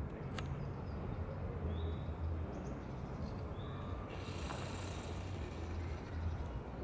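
Jaguar F-Type's engine idling: a low, steady rumble.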